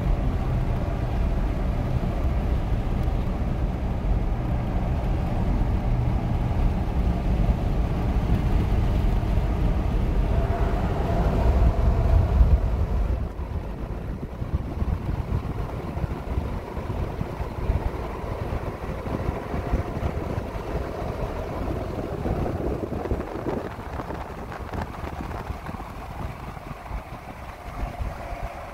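Road noise inside a moving car: a steady rumble of engine and tyres, with a rushing haze over it. It grows noticeably quieter about halfway through.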